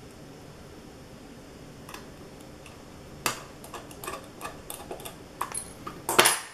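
Small screws, a screwdriver and a metal mounting bracket clicking and tapping against a 2.5-inch SSD's case as the bracket is screwed on. There is a faint tick about two seconds in, then an irregular run of sharper clicks from about three seconds in, the loudest near the end.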